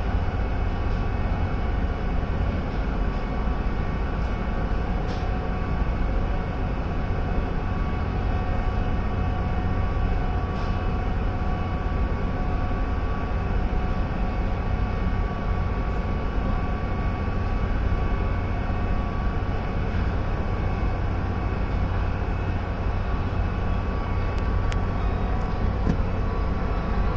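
Steady low drone of a Hakone sightseeing cruise ship's engines heard on board while under way, with a faint steady whine over an even rushing noise.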